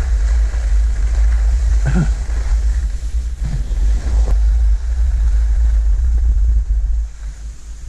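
Wind buffeting the camera microphone of a skier going downhill, a loud steady low rumble, with the skis hissing over packed snow. It eases off about seven seconds in as the pace drops.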